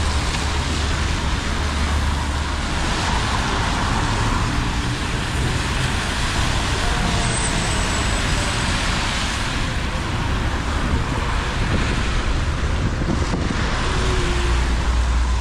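City buses and cars passing close by on a rain-wet avenue: a steady engine rumble with tyre hiss from the wet road, swelling as each vehicle goes by.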